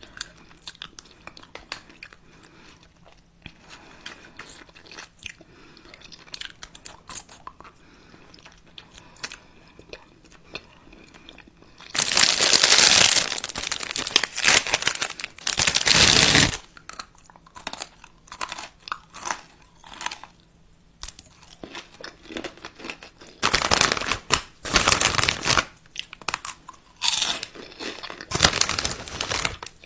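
Close-miked mouth crunching and chewing sounds. Faint scattered clicks come first, then loud crunchy bursts about twelve seconds in and again in the last six seconds.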